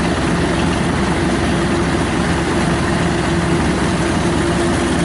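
Diesel engine of a Kubota DC-93 combine harvester running steadily at a constant speed while harvesting rice, with a steady low drone.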